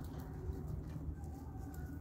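Puppies' paws crunching and pattering lightly on gravel as they sniff about, over a steady low rumble, with faint bird calls in the background.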